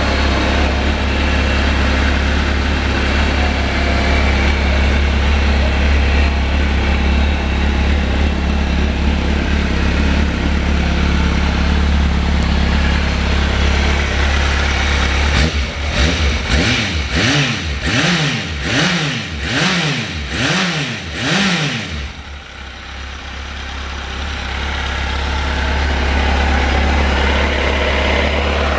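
2005 Kawasaki Z750 inline-four engine idling steadily. About halfway through it is blipped in a quick run of about ten short revs, each rising and falling, then drops back and settles to idle.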